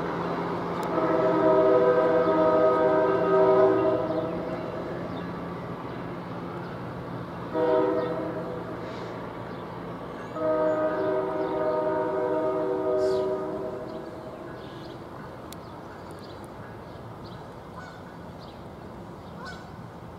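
NJ Transit commuter train horn sounding for a grade crossing as the train departs: a long blast, a short one, then another long blast, over the rumble of the train fading as it moves away.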